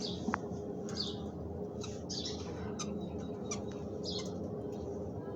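Fischer's lovebirds giving short, raspy squawks and chirps, about one a second, over a steady low hum.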